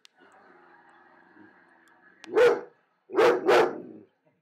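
Wolf-dog hybrid pup barking in alarm at something it is scared of: a faint low growl, then one sharp bark about two and a half seconds in and two quick barks a second later.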